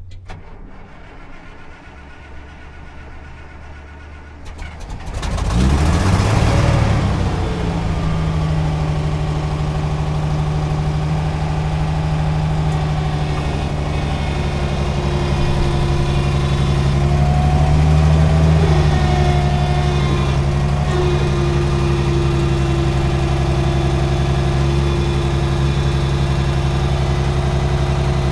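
A motor starting about five seconds in, its pitch rising as it catches, then running steadily with an even drone.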